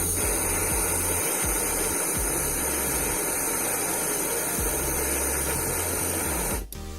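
Gas torch burning with a steady hissing rush as it heats a steel brake line red-hot before flaring; the sound stops abruptly shortly before the end.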